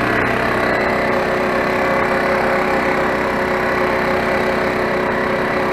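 A portable generator and a small air compressor running steadily together, the compressor inflating an air mattress: a constant drone with a few steady tones in it.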